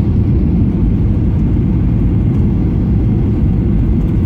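Steady cabin noise of a Ryanair Boeing 737-800 on approach, heard from inside the cabin: a loud, even rumble of engines and airflow.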